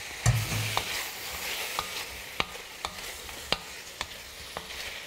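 Chicken pieces frying with a light sizzle in garlic and chilli oil in a stainless steel wok, stirred with a wooden spoon that knocks against the pan about every half second. There is a low thump about a third of a second in.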